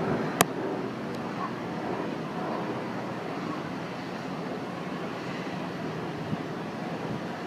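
Steady outdoor rumble of distant city traffic and harbour ambience heard from high up, with one sharp click about half a second in.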